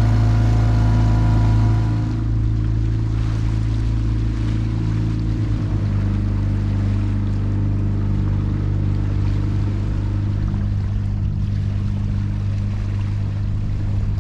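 Dinghy outboard motor running steadily under load, pushing the sailboat along as a makeshift tug because the boat's own engine is out of action. Its tone shifts slightly about two seconds in and again about six seconds in.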